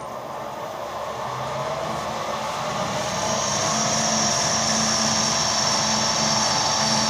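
Power drill bit boring down through a zinc-based pot-metal car door handle: a steady motor hum with a tone rising over the first few seconds, then a high, steady whine from about three seconds in as the bit cuts.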